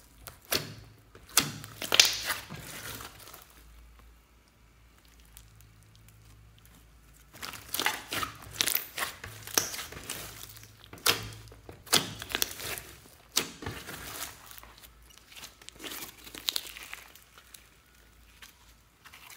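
Hand-kneaded slime with small beads mixed in, squished and stretched: sticky clicking and crackling in bursts. It falls quiet for about four seconds after the first three, then resumes.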